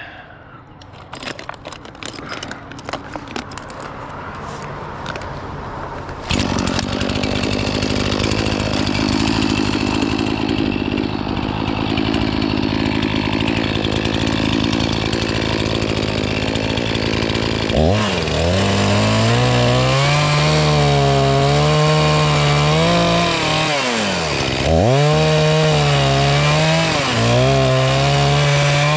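A few clicks and knocks, then a chainsaw starts about six seconds in and runs steadily. From about eighteen seconds in it is run at high revs and cuts wood, its pitch dipping and recovering several times as the chain bogs under load.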